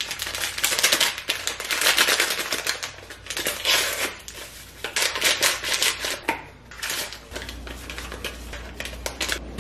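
Crinkling and tearing of a Jell-O vanilla instant pudding mix packet being opened by hand: a dense crackly rustle that eases after about seven seconds.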